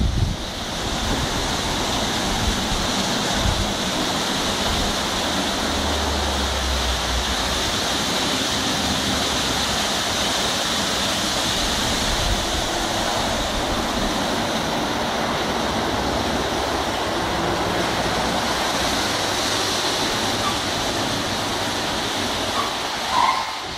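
Automatic car wash running: a steady rush of water spray and rotating wash brushes.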